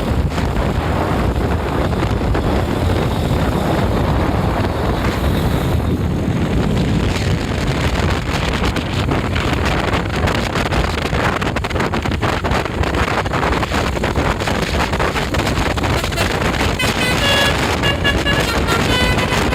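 Heavy wind buffeting on the microphone over the running engine of a tour bus. About seventeen seconds in, a basuri musical bus horn starts playing a tune of stepped tones.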